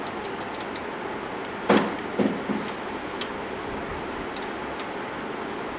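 Steady background hiss with a quick run of light clicks at the start, a dull knock about 1.7 s in and softer knocks just after, then a few more clicks. This is bench test equipment being handled and adjusted.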